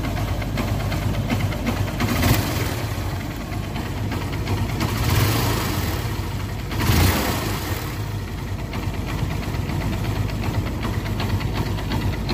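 Honda Unicorn's single-cylinder motorcycle engine idling steadily while cold, with three brief surges in loudness about two, five and seven seconds in. It holds its idle without stalling now that the carburettor has been cleaned.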